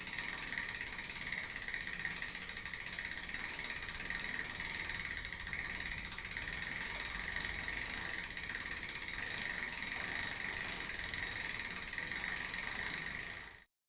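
Bicycle chain spinning over the sprockets: a steady, fast whirring rattle of the links with a hiss, which stops suddenly near the end.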